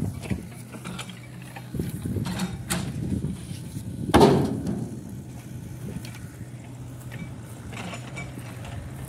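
A motor running steadily, with scattered knocks and one loud clank about four seconds in that rings briefly.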